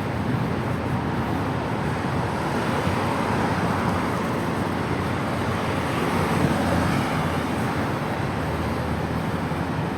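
Steady city road traffic noise, swelling for a few seconds in the middle as vehicles pass.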